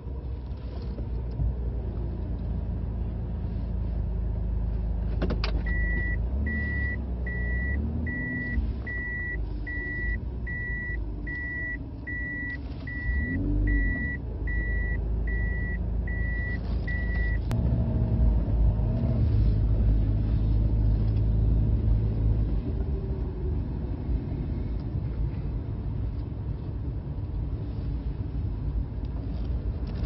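Low, steady rumble of a motor vehicle's engine and traffic. For about eleven seconds a high electronic beep repeats a little more than once a second, then stops.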